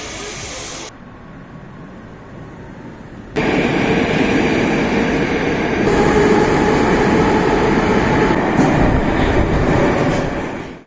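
Passenger train of double-decker coaches passing on the rails, a steady loud rumble of wheels and running gear. It gets sharply louder about three seconds in.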